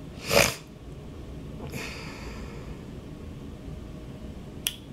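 A person's short, sharp exhale into the microphone about half a second in, then a fainter breath about two seconds in, and a single click near the end.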